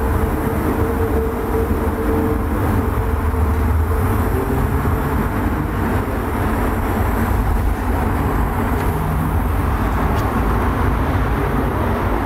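Wind buffeting the microphone: a loud, uneven low rumble with a steady low hum underneath.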